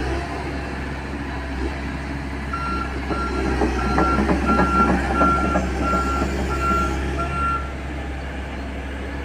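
Komatsu crawler excavator travelling on its tracks: its travel alarm beeps about twice a second for some five seconds, starting a couple of seconds in, over the steady running of its diesel engine and the clatter of the tracks.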